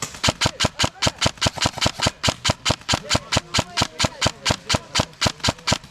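Airsoft gun firing a long, steady string of sharp shots close by, about six to seven a second.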